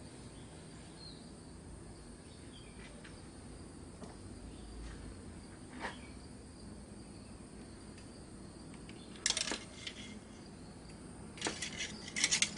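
Faint background hiss broken by a few sharp clicks: one about halfway through, then a quick clatter of small hard objects and, near the end, a longer run of rattling clicks, as of a cap, dipstick or oil bottle being handled.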